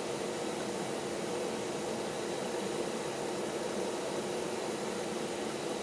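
Steady mechanical hum of a motor or fan running in a machine shop, with no clicks or changes.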